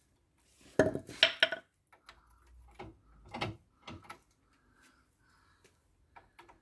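Metal suspension parts, a bolt and hand tools clinking and knocking as a bolt is worked into the front suspension. There is a loud cluster of ringing clanks about a second in, then scattered lighter knocks and taps.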